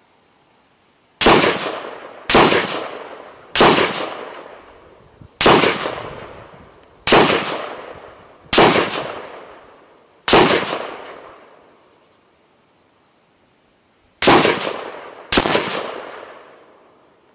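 AR-15 short-barreled rifle fired in nine single shots: seven at an uneven pace about a second or so apart, then a pause of about four seconds and two more in quick succession. Each shot rings on and fades over a second or more.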